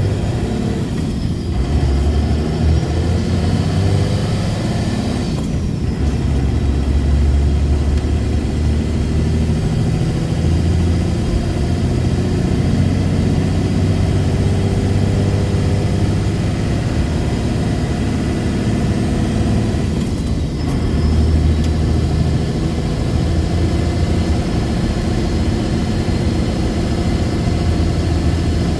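Diesel pickup engine and drivetrain running under way, the engine note rising and falling as the truck drives, with short breaks in the sound about a second in, near six seconds and near twenty seconds.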